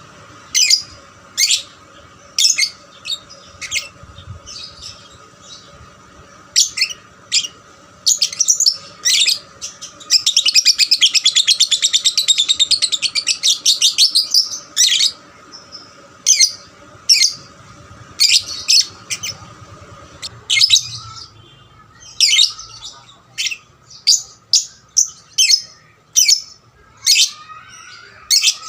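Young lovebird singing: a string of short, sharp, high chirps, with one long, rapid chattering trill lasting about four seconds starting about ten seconds in.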